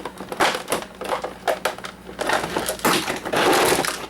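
Plastic housing of an Oster coffee maker being pried and pulled apart by hand: a run of cracks, clicks and scraping, with a longer rasping stretch near the end.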